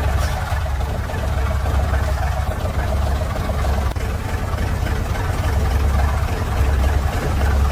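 Heavy truck engine running steadily at low revs, a deep continuous hum.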